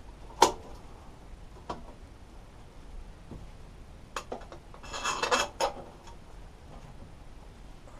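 Plastic air filter cover of a lawn mower engine being pressed and clicked back into place. A sharp plastic click comes about half a second in, followed by a few lighter clicks and a short clatter of plastic knocks around five seconds in.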